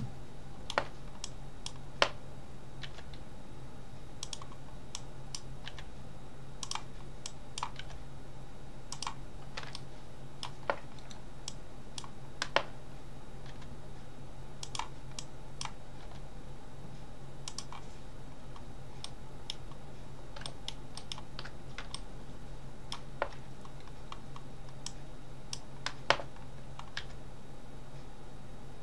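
Computer keyboard keys and mouse buttons clicking at irregular intervals, a few dozen short clicks with louder ones about two seconds in, near the middle and near the end, over a steady low electrical hum.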